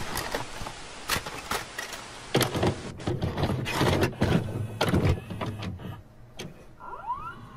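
VHS sound effect: a tape machine's mechanism clicking and clunking over a steady tape hiss, with a couple of short rising whines near the end.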